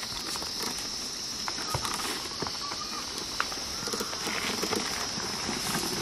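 Ox-drawn ploughing in dry soil: scattered soft thuds, scuffs and clicks of hooves, feet and a hoe on the earth, over a steady high-pitched hiss.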